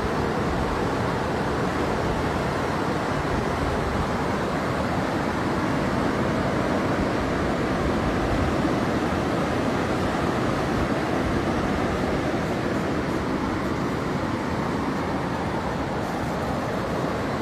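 Fast-flowing floodwater rushing through a street in a torrent: a steady, even rush of water without pause.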